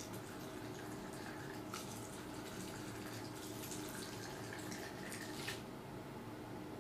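Liquor trickling from a glass bottle into small shot glasses, a steady splashing pour that stops shortly before the end.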